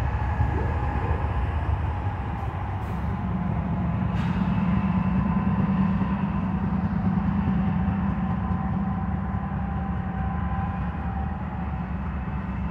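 Four BNSF GE Dash 9-44CW diesel-electric locomotives rolling past with a steady low rumble and hum, followed by the first double-stack container cars.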